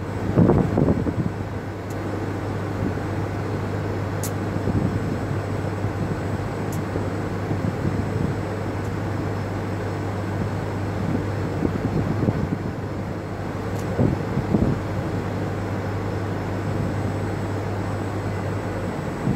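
Steady outdoor background noise with a constant low hum, broken by gusts of wind buffeting the microphone, strongest about half a second in and again around fourteen seconds in.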